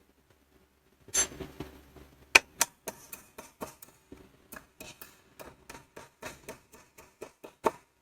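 Small metal parts clicking and tapping against each other as a U-shaped metal strip is fitted between the contacts of a magnetic connector: a run of short sharp clicks, about three or four a second, starting about a second in.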